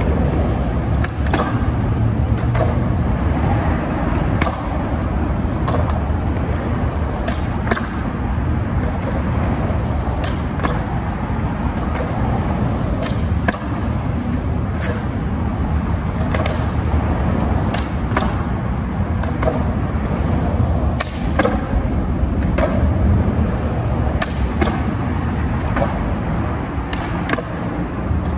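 Skateboard wheels rolling on rough asphalt, a steady rumble, with frequent sharp clacks of the board on the ground from tail pops and landings.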